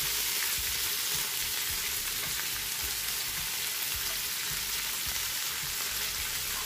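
Sliced onions frying as they go into hot coconut oil with whole spices in a steel pot: a steady sizzle.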